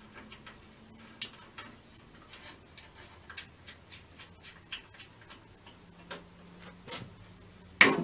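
Hand ratchet wrench clicking in a run of light ticks, about three a second, then a single louder metallic knock near the end.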